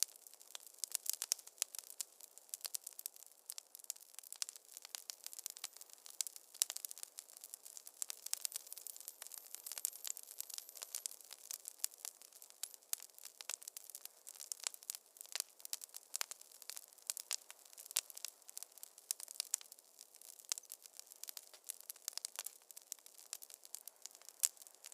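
Wood fire crackling in a fireplace: a dense, irregular run of sharp snaps and pops over a soft hiss.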